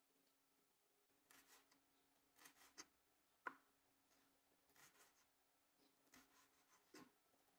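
Faint knife strokes cutting a green bell pepper into strips on a wooden cutting board: several short, crisp cuts spread out, with one sharper click of the blade about three and a half seconds in.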